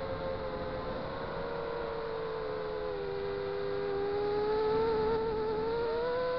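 FPV quadcopter's brushless motors whining steadily, heard from the onboard camera, the pitch dipping slightly about three seconds in and climbing again near the end as the throttle changes.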